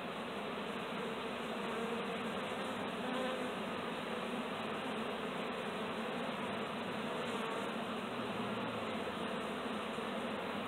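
A swarm of honey bees buzzing: a steady, continuous hum of many bees flying and clustering together.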